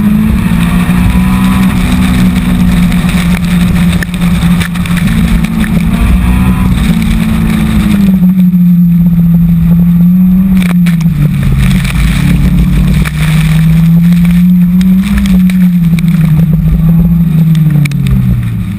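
Subaru BRZ's flat-four engine under hard autocross driving, its pitch climbing and dropping over and over as the driver goes on and off the throttle. A dense rumble of wind and wet road noise lies under it.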